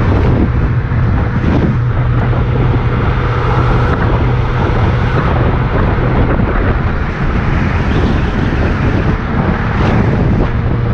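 Motorcycle engine running steadily while riding at road speed, with heavy wind noise buffeting the microphone.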